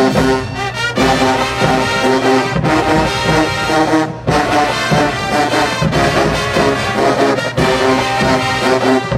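Marching band playing loud, full brass (trumpets, trombones and sousaphones) with drums, in punchy phrases broken by short breaks about every second and a half.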